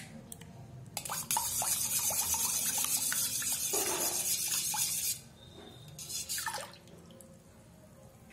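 Steel spoon stirring green chutney water for pani puri in a steel bowl: liquid sloshing and splashing with small clinks of the spoon on the metal. The loudest stretch starts about a second in and runs for about four seconds, followed by a shorter burst a little later.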